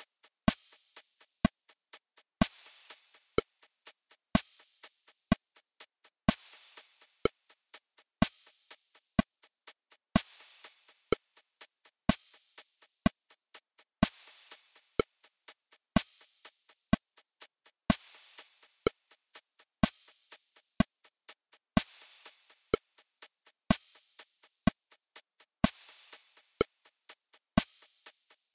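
Electronic metronome click track at 62 beats per minute in 4/4, with drum-machine sounds. A longer cymbal-like hit marks the first beat of each bar, about every four seconds, and shorter sharp clicks fill in between at an even pace.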